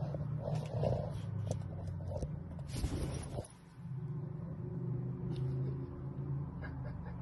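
Dachshund growling low and steadily from under a sofa cover, breaking off briefly about three and a half seconds in.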